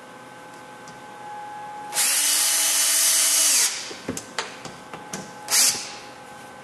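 Cordless drill/driver driving a hinge screw into plywood: the motor runs steadily for about a second and a half, then winds down. A few light clicks follow, then a second short burst of the drill.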